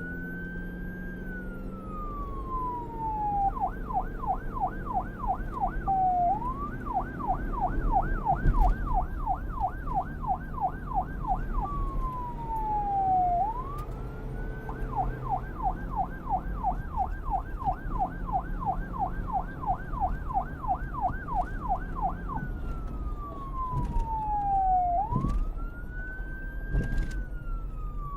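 Electronic police car siren switching between a slow wail, rising and falling between a low and a high pitch over a few seconds, and a fast yelp of about three sweeps a second, with a low vehicle rumble underneath.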